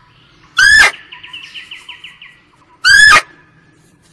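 Two short, high-pitched squealing calls from an elk, each arching up and down in pitch, about two seconds apart, with a faint rapid trill between them.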